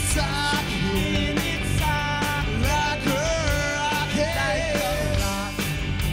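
Rock band playing live: distorted electric guitars, bass and drums under loud male singing, with a second male voice singing along.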